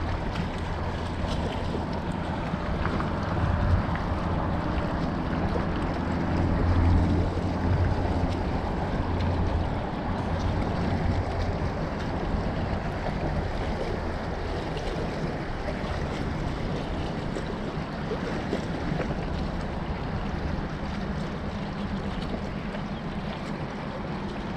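Wind buffeting the microphone over moving water, with a low steady motor hum underneath that is strongest in the first ten seconds.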